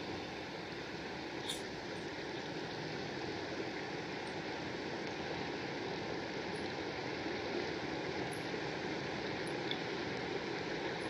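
Jetboil camp stove's gas burner running under a frying pan, a steady rushing hiss, with a few faint ticks.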